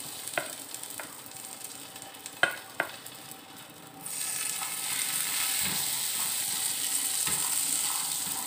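Chopped dried dates frying in ghee in an aluminium pot, with a few sharp knocks against the pot early on. About four seconds in, a much louder, steady sizzle starts and continues as they are stirred with a wooden spatula.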